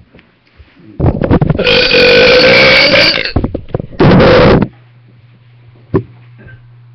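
A person burping right into the microphone, very loud: one long burp of about two seconds, then a shorter second one.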